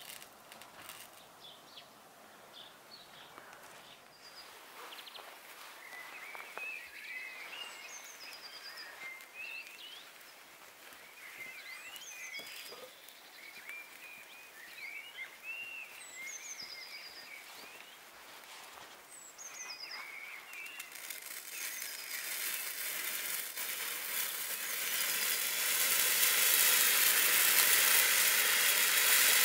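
Birds chirping for the first two-thirds. Then a magnesium and strontium chloride hexahydrate pyrotechnic mixture catches and burns with a hiss that builds from about two-thirds of the way in and is loud near the end.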